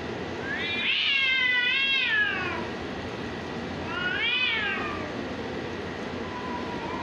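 Cats yowling at each other in a standoff: two long, drawn-out yowls, each rising and then falling in pitch, the first about two seconds long, then a faint low moan near the end. These are the warning yowls of a territorial face-off before a fight.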